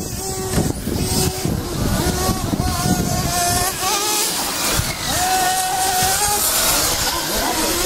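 Radio-controlled model racing cars lapping the track, their motors giving a high-pitched whine that rises and falls in pitch as they speed up and slow down.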